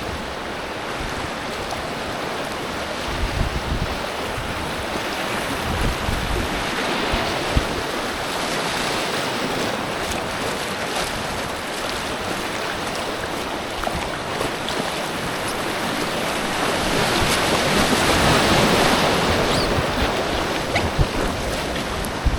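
Creek water rushing around an inflatable kayak running down a mountain stream, with wind buffeting the microphone; the rush of water grows louder about three quarters of the way through.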